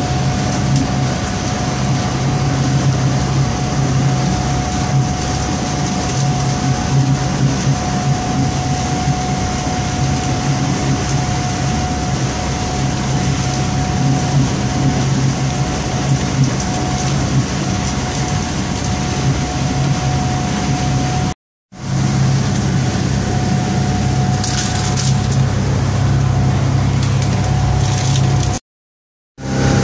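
Four Winns 268 motor cruiser under way: its engine runs with a steady low drone and a steady whine above it, mixed with the rush of water and wind past the hull. The sound cuts out briefly twice, about two-thirds of the way through and near the end.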